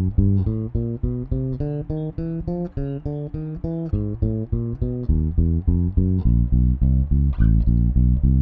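Electric bass guitar played fingerstyle: a steady run of single plucked notes, about four a second, stepping up and down in pitch, as in a left-hand finger exercise.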